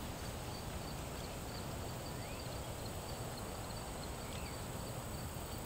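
Quiet outdoor yard ambience: a steady background hiss with faint, regular insect chirping high up and a couple of brief faint bird chirps.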